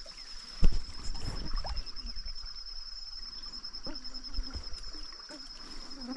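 A small stream's rapid running, with an insect's steady, high-pitched trill over it. A sudden thump comes about half a second in, the loudest sound.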